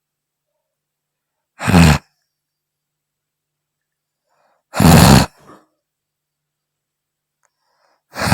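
A worn-out woman snoring: three loud snores about three seconds apart, each lasting under half a second.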